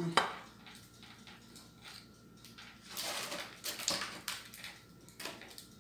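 A metal serving utensil clinks and scrapes against a foil-lined baking tray while roasted chicken pieces are lifted out, with the foil rustling. There is a sharp click just after the start and scattered short scrapes, the busiest a few seconds in.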